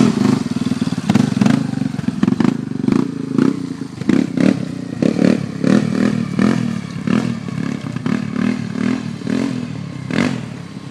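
Small ATV engine running close by, its note rising and falling in quick surges as the throttle is worked, with some rattling clatter.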